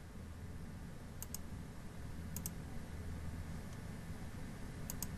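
Computer mouse clicking: three quick pairs of clicks, about a second in, about two and a half seconds in, and near the end, over a low steady hum.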